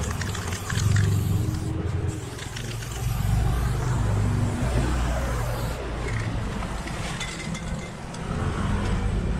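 Aerosol spray paint can hissing on and off as black fill is sprayed onto a wall, over a steady low rumble.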